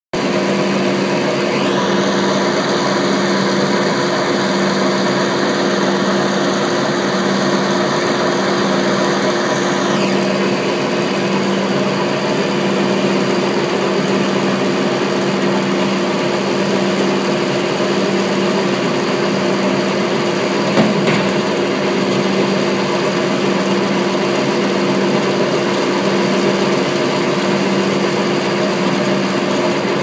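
Bandit 1890 drum wood chipper running steadily with nothing being fed: the engine and spinning drum make an even, unchanging drone.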